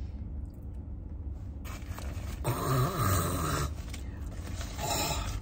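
A woman's low, breathy groan of disgust at an unpleasant taste, lasting about a second, about halfway through, then a shorter breathy sound near the end. A steady low rumble runs underneath.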